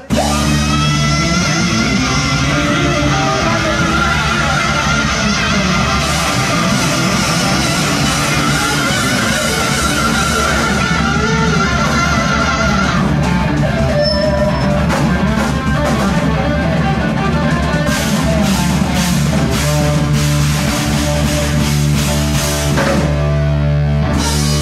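Live rock band playing loud: electric guitar, bass guitar and drum kit together. Past the middle the drums drive a run of regular sharp hits.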